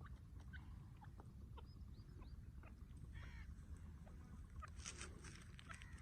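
Faint, scattered short bird calls and chirps over a steady low rumble, with a clearer pitched call about three seconds in and a brief burst of calls about five seconds in.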